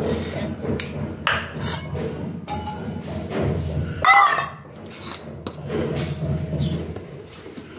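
A hand scrapes wet ground linseed paste off a stone grinding slab (sil-batta) and wipes it into a steel bowl, with soft scraping and light knocks against the metal. About four seconds in, a brief, louder call with a wavering pitch cuts in.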